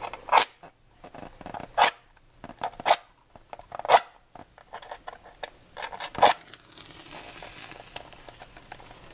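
A wooden match struck repeatedly against a matchbox striker: four sharp scrapes about a second apart, then a fifth after a short pause. The fifth catches and the match flares with a brief hiss.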